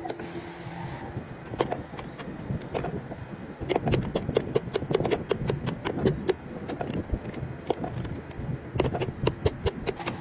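Irregular sharp taps and clacks of hand work on wooden paint brushes with metal ferrules, coming thick in two spells, with hammer taps near the end. A steady rumble runs underneath.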